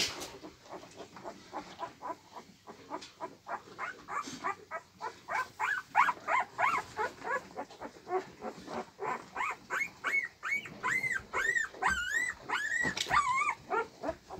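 Newborn husky puppies squeaking and whimpering: a rapid run of short, high-pitched cries that grows denser and higher through the second half.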